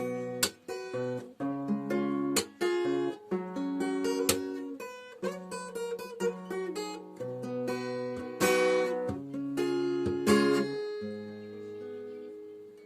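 Acoustic guitar playing a melody of plucked notes and chords. About eleven seconds in it settles on a final chord left ringing and slowly fading.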